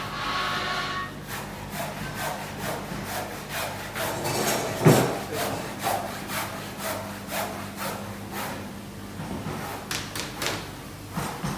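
Repeated rasping strokes on wood, about two a second, like hand tools working timber, with a sharp knock about five seconds in. A steady low machine hum runs underneath and stops near the end.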